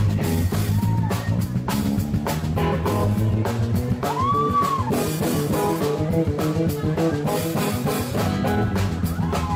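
Live band playing: a drum kit keeping time under electric bass and guitar, the low bass line strong throughout. About halfway through, one note is bent up and back down.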